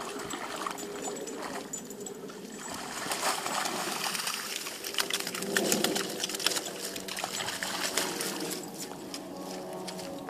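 Irish Setter puppies splashing through the shallow edge of a stream, water splattering and trickling around their legs; the splashing is busiest and loudest in the middle few seconds.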